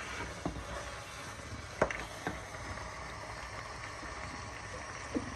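A wooden spoon stirring in a metal cooking pot of tripe and spinach, with a few short knocks against the pot, the loudest about two seconds in, over a steady low background noise.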